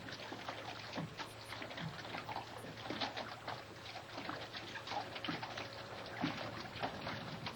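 Water lapping and sloshing irregularly against a boat and floating dock, in small uneven splashes.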